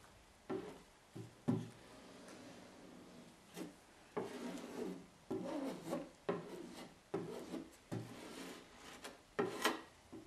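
A putty knife scraping over a fiberglass patch in a dozen or so short, uneven strokes, spreading resin to wet out the glass cloth.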